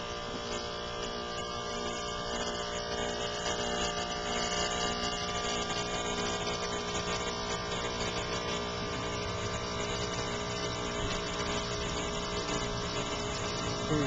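Gibson air-conditioner condensing unit's compressor running with a steady hum. The condenser fan is still stopped, held off by the fan cycling switch.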